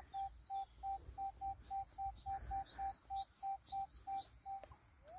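Minelab Equinox metal detector sounding a run of short beeps, all at the same pitch, about three a second, as its coil is swept over a buried target reading 26–27 on the ID scale: a solid signal worth digging. The beeps stop near the end with a single click, and faint bird chirps sound behind them.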